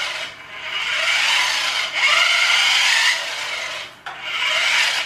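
Toy radio-controlled car's small electric motor and plastic gears whirring as it drives across a wooden floor, in stop-start bursts of about a second each, the whine rising a little in pitch within some bursts.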